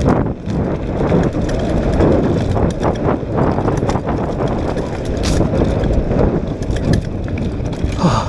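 Mountain bike riding fast down a rough dirt trail: tyres rolling over the dirt and the bike rattling over bumps in many sharp knocks, under a steady rumble of wind on the microphone.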